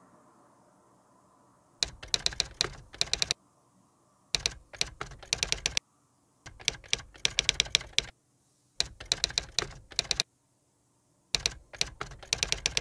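Rapid computer keyboard typing in five short bursts of about a second and a half each, with brief pauses between them.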